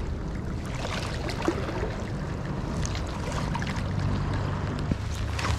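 Wind buffeting the microphone as a steady low rumble, with small ripples lapping at a rocky shoreline and a few light clicks.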